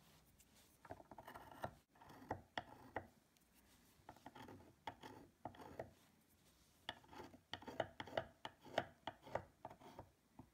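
Small engraving tool scraping out the carved hollows of a stripped wooden furniture panel: quiet, irregular short scratches and clicks, coming more often in the second half.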